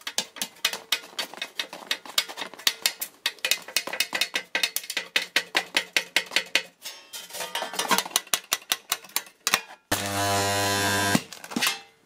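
Abrasive cloth rubbed quickly over the edges of thin steel sheet, a rapid train of short scraping strokes, several a second. About ten seconds in, a microwave-oven-transformer spot welder fires: a loud, steady mains buzz lasting about a second, then a brief second buzz, as the weld spot glows.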